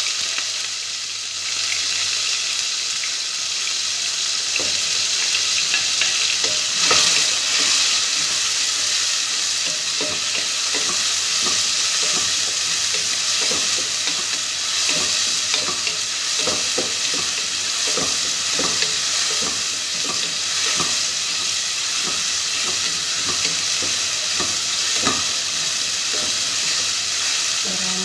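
Sliced red onions sizzling as they sauté in hot oil in a deep cooking pot. A wooden spatula stirs them, knocking and scraping against the pot many times.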